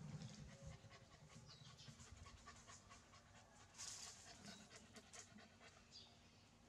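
A dog panting quickly and quietly, a few breaths a second, with one louder breath about four seconds in.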